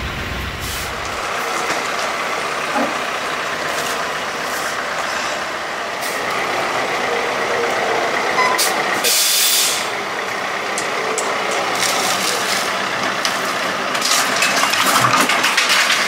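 A John Deere utility tractor's diesel engine running as its front loader carries a load. There is a short hiss about nine seconds in, and the engine gets louder and rougher near the end as the tractor comes closer.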